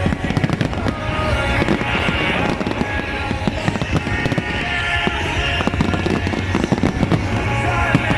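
Fireworks going off in rapid succession, with dense crackling and bangs, over music with sustained tones.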